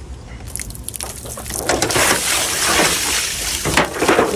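Running water splashing, building up about a second and a half in and staying strong, with a few clicks and knocks over it.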